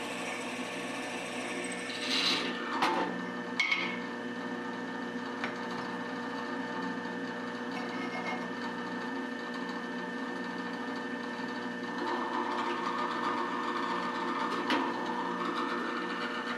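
Drill press running with a steady motor hum while a twist drill bites into a steel workpiece in two rougher cutting spells, a few sharp metal clinks among them.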